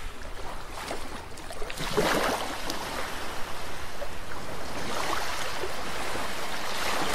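Small sea waves washing in and out over a pebble beach, the water swirling and hissing over the stones in repeated surges.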